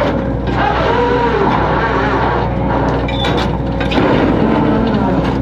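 Fishing boat's engine and net-hauling machinery running with a steady low drone, with shifting pitched tones over it.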